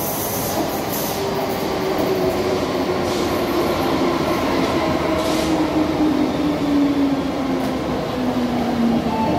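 MTR M-train electric multiple unit pulling into a platform and braking. Steady rumble of wheels on rail, with a motor whine falling slowly in pitch as the train slows.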